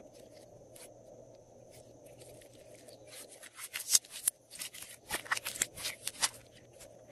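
Glossy slime squeezed and stretched between the hands, making quick sticky clicks and pops that come thick and fast from about a third of the way in.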